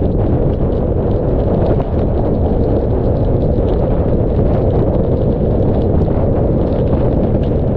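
Hurricane-force wind from a hurricane's remnant eyewall buffeting a car-roof-mounted action camera's microphone: a loud, steady, deep roar, with rain spattering on the camera.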